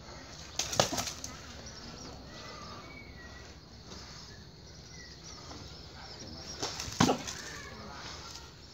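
Muay Thai sparring strikes landing, boxing gloves smacking against gloves and body: a quick cluster of two or three hits about a second in, and another cluster around seven seconds in.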